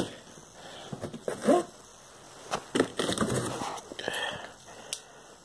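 Cardboard box being cut open with a knife: scraping and rustling of cardboard and packing tape, with a few sharp clicks.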